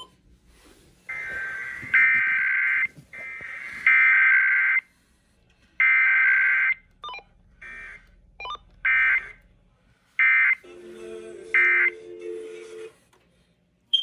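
Emergency Alert System SAME digital header bursts received on an FM radio during a Required Weekly Test. Three data bursts of about a second each come with short gaps between them, then several shorter bursts follow, and a lower steady tone sounds near the end.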